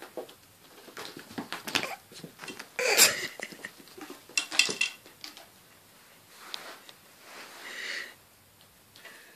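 A cat clawing and pawing at a sisal-rope scratching post: irregular scratching and knocking, with a louder clatter about three seconds in.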